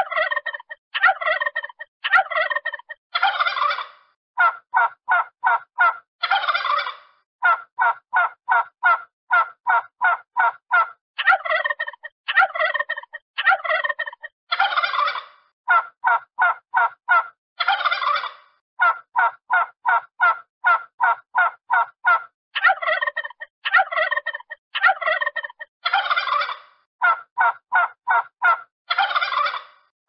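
Turkey gobbling: rapid stuttering runs of short notes broken by longer warbling gobbles, the same sequence coming round again about every eleven to twelve seconds.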